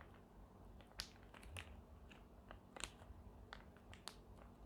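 Near silence with faint, scattered small clicks and ticks from handling the mask's plastic parts and HEPA filter.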